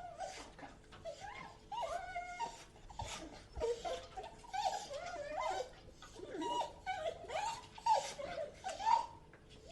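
Dog whining: a steady string of short, high whimpers that slide up and down in pitch, one after another with only brief gaps.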